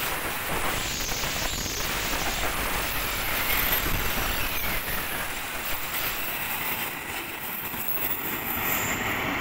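Passenger train coaches rolling past on the rails: a steady rumble and clatter of wheels, with some thin high squeals. The last coach goes by near the end.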